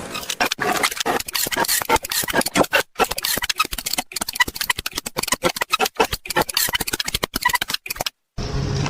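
A fast run of sharp clicks and knocks, several a second, broken by a few brief drops to silence.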